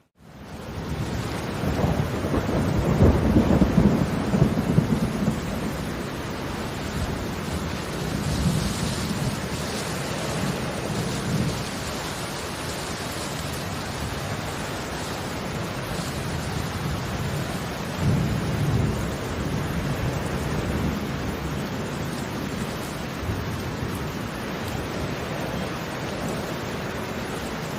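Steady rain falling, with low rumbling swells of distant thunder a couple of seconds in and again past the middle. The sound fades in at the start.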